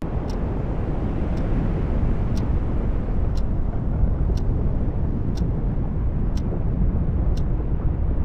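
Loud, steady rumble of a glacier calving, masses of ice collapsing into the sea, starting abruptly. A clock ticks about once a second over it.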